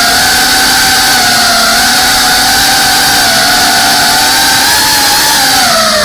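FPV drone's brushless motors and propellers whining steadily, heard from the onboard camera. The pitch wavers with the throttle, then dips near the end and climbs again.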